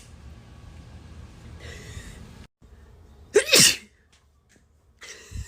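A woman sneezes once, suddenly and loudly, about three and a half seconds in: a sharp burst of air with her voice sliding down in pitch.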